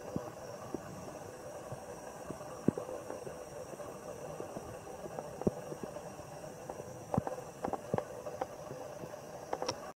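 Steady outdoor background hiss with scattered sharp clicks and ticks, more of them in the last few seconds.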